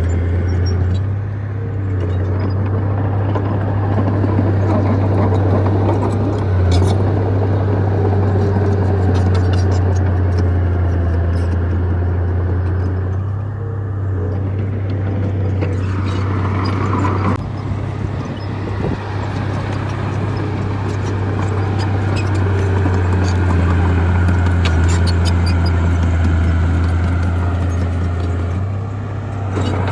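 Bulldozer's diesel engine running steadily under load with a deep drone, easing off briefly twice, with scattered metallic clanks.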